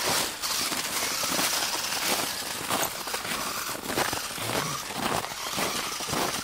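Footsteps crunching through snow, at an uneven pace, over a steady hiss.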